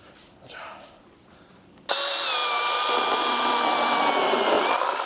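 Extool cordless handheld mini chainsaw switched on about two seconds in: its electric motor and chain start suddenly and run with a steady high-pitched whine, dipping slightly in pitch near the end. Quieter handling rustle comes before it.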